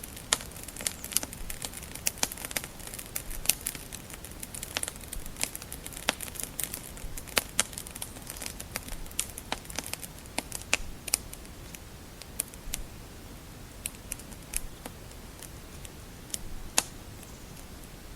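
Wood fire crackling in a fireplace: irregular sharp pops and snaps over a low hiss, busier in the first half and thinning out later.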